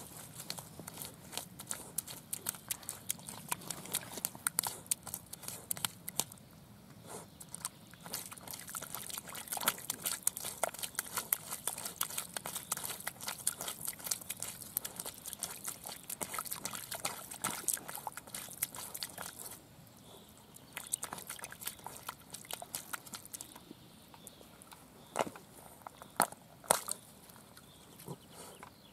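Norwich terrier digging and nosing in a muddy puddle: wet mud and water squelching and splashing in dense, irregular crackles. The noise thins out about two-thirds of the way through, with a few sharper, louder clicks near the end.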